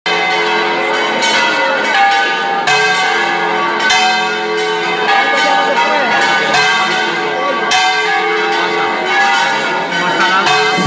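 Church bells pealing, struck roughly once a second, each strike ringing on into the next so the tones overlap.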